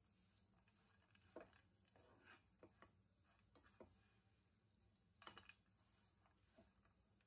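Faint, scattered scrapes and taps of a perforated metal spatula stirring and pressing a sticky date, nut and seed mixture in a nonstick frying pan, most of them in the first half and a short cluster about five seconds in.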